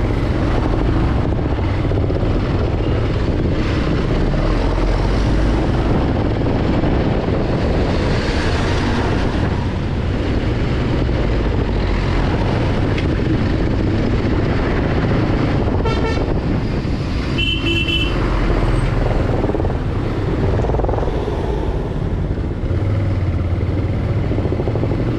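Motorcycle riding along in slow traffic, its engine and road noise running steadily. A vehicle horn honks briefly about two-thirds of the way through, then again about a second and a half later.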